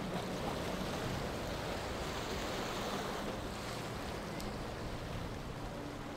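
Center-console boat's outboard engines running under way: a steady rush of water and wake over a faint low engine hum, with some wind on the microphone.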